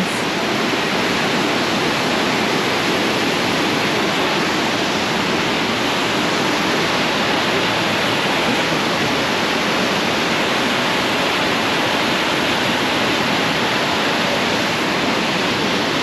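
Davis Falls waterfall pouring: a loud, steady rush of falling water with no let-up.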